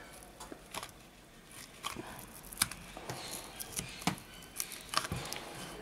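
Irregular small clicks, taps and scrapes of a thin plastic card being worked under a smartphone's glued-in battery and against its plastic housing, prying the battery free of its heat-softened adhesive.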